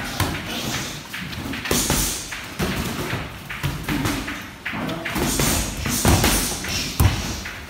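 Boxing gloves thudding and slapping as punches land on gloves and guards during sparring, irregular sharp hits, with two of the hardest landing about six and seven seconds in.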